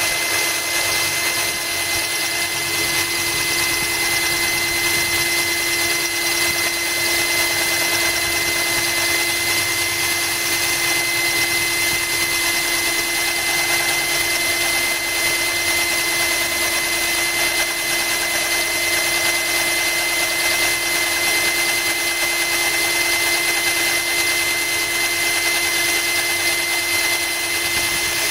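Genesis cordless drill running steadily with a diamond core bit grinding into a glass bottle, cooled by a trickle of hose water; a constant motor whine.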